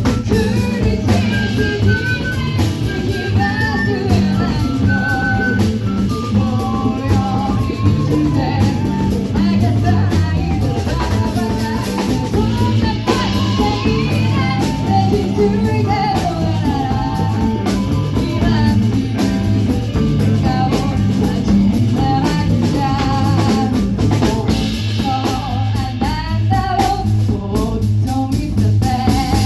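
A band playing a rock song with drum kit and guitar over a steady bass, with a melodic lead line moving above the accompaniment.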